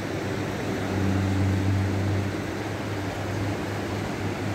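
Steady rushing noise of a river, with a steady low hum over it that swells about a second in and eases back.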